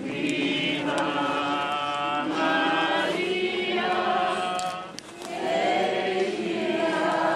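A crowd of people singing a hymn together in long, held notes, with a short break for breath about five seconds in.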